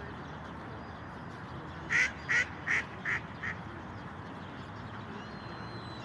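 A duck quacking: five quick quacks in a row, the last ones fading.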